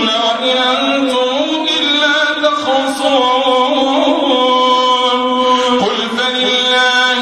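Imam chanting Taraweeh prayer recitation in Arabic: one man's voice in a melodic chant with long held notes gliding from pitch to pitch.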